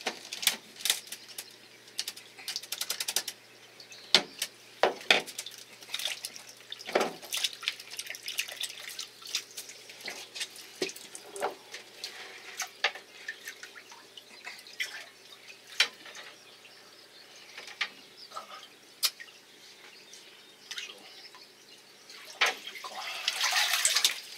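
Gloved hands spiking and handling a freshly caught fish on a wet boat deck, the ikejime kill: irregular wet clicks, taps and drips. Near the end comes a louder stretch of splashing and rustling.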